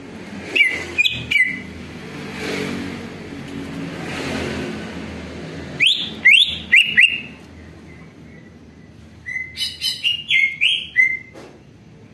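Cucak ijo (greater green leafbird) giving sharp whistled notes in three short bursts, each note dropping in pitch; the last burst is a quicker run of notes. A low rushing noise swells and fades between the first two bursts.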